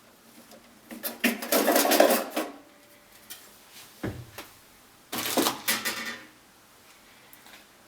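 A home electrical panel being opened: metallic clattering and rattling in two bursts as the cover is handled and taken off, with a single dull thump between them.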